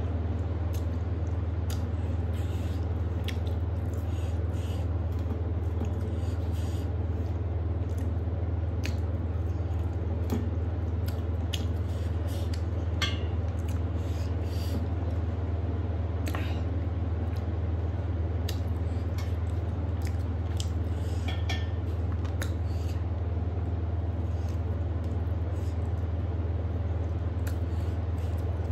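Someone eating by hand from a metal plate: scattered small clicks and smacks of chewing and of fingers scraping food together on the plate, over a steady low hum.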